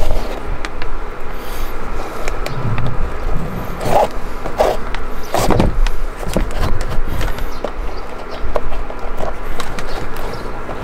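Laces pulled through the metal eyelets of leather boots: scratchy rubbing and small clicks, with a few short rustling pulls, over a steady background hum.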